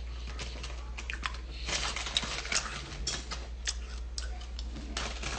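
Irregular soft clicks and rustles, a few every second, over a steady low hum.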